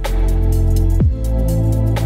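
Background music: sustained chords over a heavy bass, with a deep bass sweep falling in pitch about halfway through.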